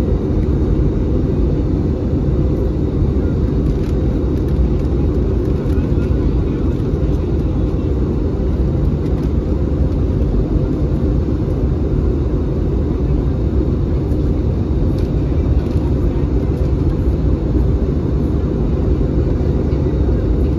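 Steady, deep drone of an Airbus A320's jet engines and rushing airflow, heard inside the cabin during the descent.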